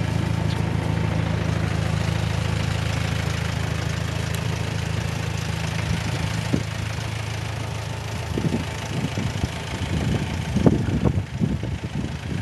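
Small International garden tractor engine running steadily at a constant low hum. From about two-thirds of the way through, irregular knocks and rustles come in over it.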